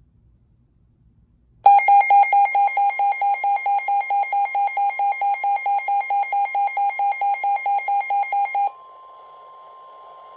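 Weather alert radio alarm going off: a loud, rapid beeping that starts about two seconds in and stops after about seven seconds, signalling an incoming warning. A steady weather radio alarm tone then carries on alone over radio hiss.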